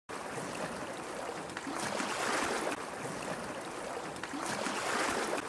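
Sea surf: waves washing onto a shore as a steady rush of water, swelling louder about two seconds in and again near the end.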